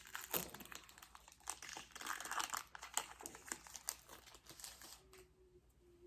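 Foil wrapper of a Pokémon trading-card booster pack crinkling as it is handled and torn open, stopping about five seconds in.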